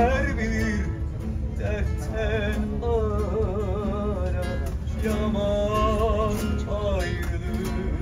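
Music: a voice singing several long, wavering phrases over plucked guitar and a steady bass.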